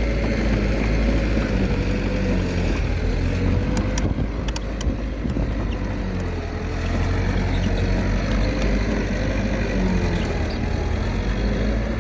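Komatsu D21A bulldozer's diesel engine running steadily under load. It sags slightly about six seconds in and picks up again a second later, with a few faint clicks about four seconds in.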